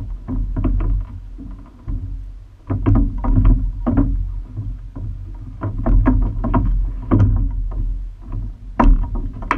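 Single-scull rowing shell under way: knocks and clicks from the oars in their gates and the sliding seat come in clusters every couple of seconds, over a steady low rumble.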